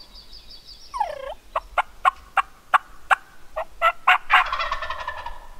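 Wild turkey calling: a short downward-sweeping call, then a run of sharp yelping notes about three a second, ending in a longer held call.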